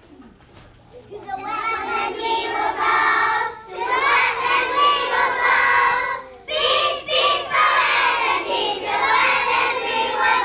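A group of young children singing together, several voices at once, with two short breaks.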